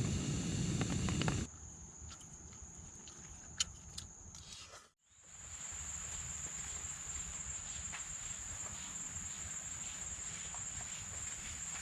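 Insects droning in one steady high-pitched tone over a low outdoor rustle, with scattered light ticks and one sharp click about three and a half seconds in. The sound changes abruptly twice: it is louder for the first second and a half, then quieter, and it drops out briefly around five seconds before the drone returns.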